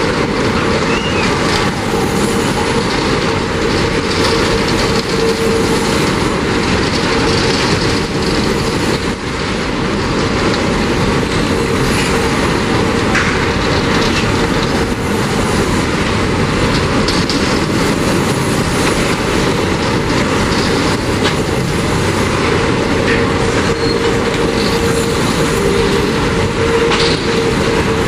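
A freight train of covered grain hopper wagons rolls past on a curve: a steady rumble and clatter of steel wheels on rail. A held wheel squeal from the curve comes and goes over it.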